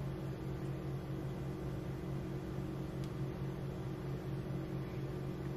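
Steady low hum of kitchen room tone, unchanging throughout; the knife spreading peanut butter makes no distinct sound above it.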